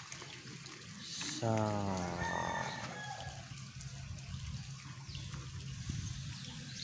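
A rooster crows once, about a second and a half in, over the steady trickle of rainwater running across a paved lane.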